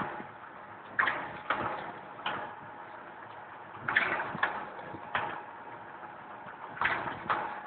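Automatic cooking-oil bagging machine running through its packing cycle: a group of mechanical clacks and knocks about every three seconds over a steady machine hum.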